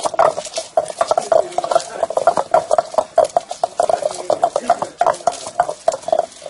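Stone pestle pounding garlic cloves in a granite mortar: a quick, steady rhythm of stone-on-stone knocks with the crunch and scrape of the cloves being crushed.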